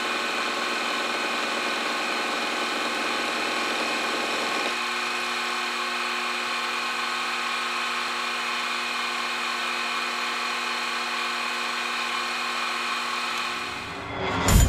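Milling machine running with an end mill in a metal workpiece, giving a steady machine whine with a rougher cutting noise under it. About five seconds in, the rougher layer drops away as the cutter comes out of the slot, and the spindle runs on steadily until it fades just before the end.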